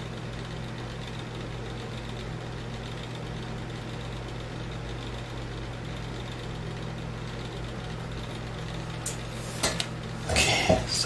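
Steady low hum of a motor or electrical appliance running, with a few brief clicks and rustles near the end.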